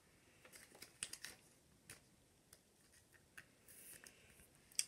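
Faint handling of hockey trading cards: a few soft scattered clicks and light rubbing as cards are slid and flipped through a pack.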